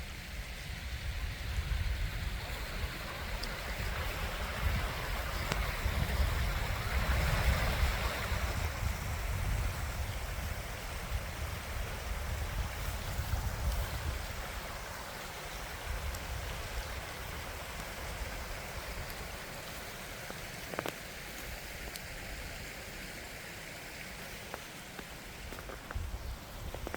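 A creek running steadily, a continuous rush of flowing water, with a low rumble under it through the first half.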